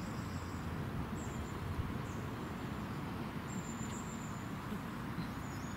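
Steady low rumble of outdoor background noise, with faint short high-pitched bird chirps now and then.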